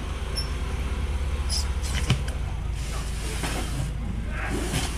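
Styrofoam boxes being handled: a couple of sharp knocks about two seconds in, then a plastic bag rustling as it is pulled up out of a box, over a steady low rumble.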